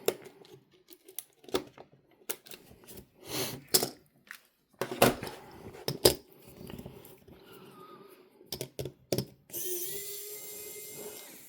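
Small tools clicking and tapping irregularly on the parts of a Sony MZ-E730 minidisc player as it is taken apart for a laser swap. Near the end comes a steady hiss with a faint tone for about two seconds.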